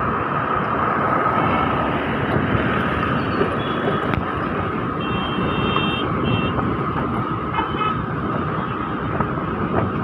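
Motor scooter riding along a busy road: steady engine, road and wind noise. Several short high beeps sound between about three and eight seconds in.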